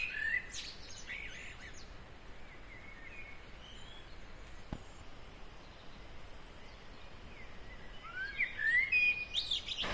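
Small birds chirping: a few short rising chirps near the start and another run near the end, over a steady faint outdoor hiss.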